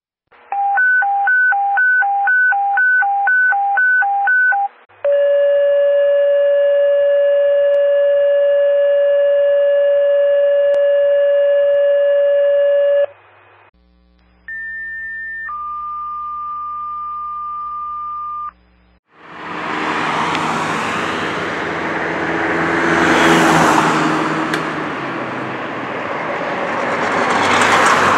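Radio dispatch alerting tones: a high-low tone alternating about twice a second, then one long steady tone, then a two-tone page of a short higher tone followed by a longer lower one. About 19 seconds in, the tones give way to a loud rushing noise with a low hum underneath, swelling twice.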